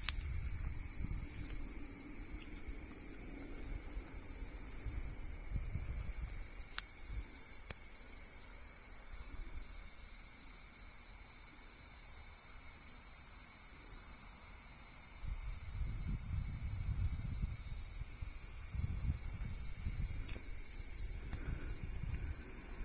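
Outdoor insect chorus: a steady, high-pitched buzzing drone that does not let up. Wind rumbles on the microphone in gusts through the second half.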